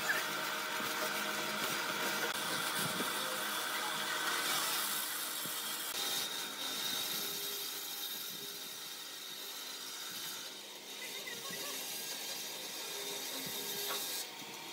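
Bandsaw running and cutting a curve through a thick round slab of tree-stump wood: a steady sound with a thin, high, steady tone over it.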